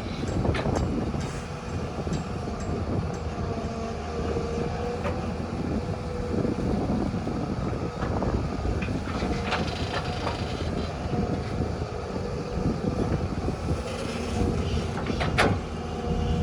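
Diesel earthmoving machinery working: a heavy engine running steadily with a held whine, and scattered metallic clanks.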